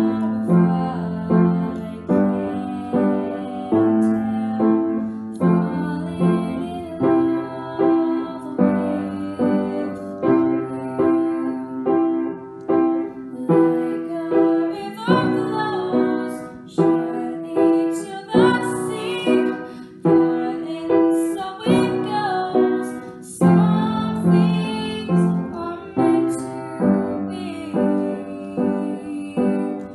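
Upright piano played in steady chords, about one a second, with a girl's voice singing along over it, clearest in the middle.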